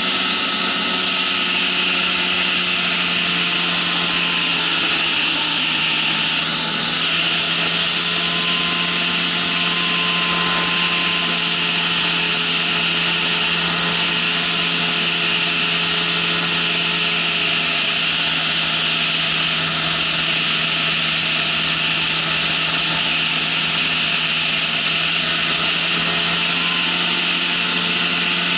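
Ultralight trike's engine and propeller running loud at a steady pitch in flight, with a steady hiss over it.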